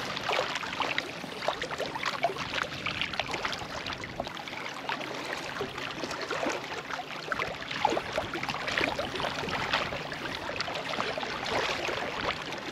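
Small waves lapping and splashing against shoreline rocks, a steady wash of water broken by many small, irregular splashes.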